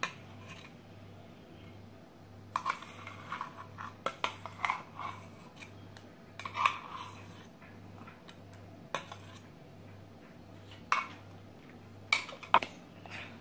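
Steel utensils clinking and scraping against stainless-steel vessels as thick jackfruit paste is scraped out of one vessel into a pot of milk mixture. The sound comes in short irregular clusters of clinks, with single sharp knocks near the end.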